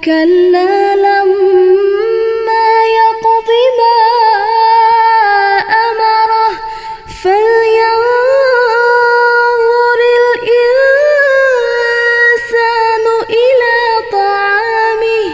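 A young woman reciting the Quran in melodic tartil style, her single voice drawing out long, ornamented notes, with a short breath pause about seven seconds in.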